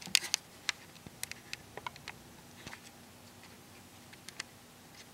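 Light clicks and taps of a TackLife DM02A digital multimeter's plastic case being handled, with a quick cluster right at the start and scattered single clicks after.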